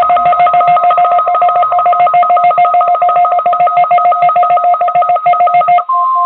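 Rapid electronic beeping, about eight two-tone beeps a second. Near the end the beeping stops and a steady single tone starts: the weather radio warning alarm tone that opens a weekly test.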